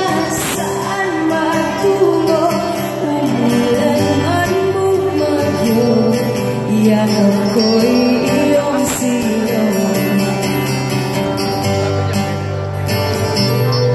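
Live pop band playing a song: a woman's lead vocal over acoustic guitar, electric bass and light percussion, the singing carrying most of the way through.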